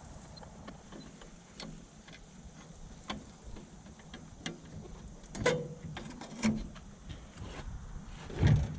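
Scattered knocks and clunks of things being moved about and handled, with louder thuds about five and a half, six and a half and eight and a half seconds in.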